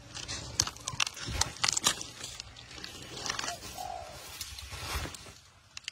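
Komodo dragon feeding on a young wild pig: irregular crunches, snaps and tearing as it shakes the carcass in its jaws and gulps it down, with scuffing on gravel.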